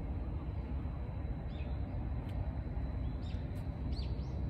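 Small birds giving several short, high chirps, most of them in the second half, over a steady low rumble.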